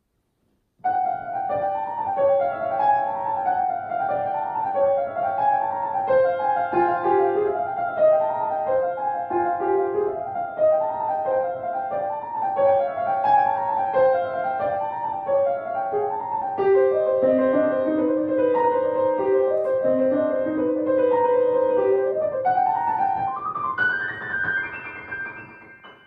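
Grand piano played solo, starting about a second in: a fast, repeating figure in the upper middle of the keyboard with lower notes joining in, ending with a rising run that then dies away.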